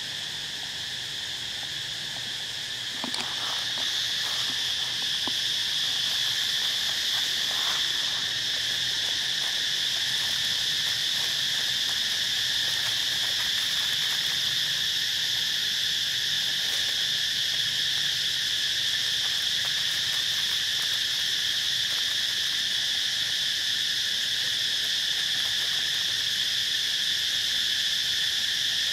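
Steady, high-pitched insect chorus, a continuous buzz that gets louder about three seconds in.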